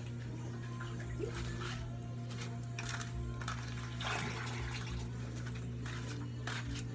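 Water splashing and plastic buckets and a plastic dipper knocking as someone handles them. There are scattered short splashes and knocks, a longer splash about four seconds in, and a steady low hum underneath.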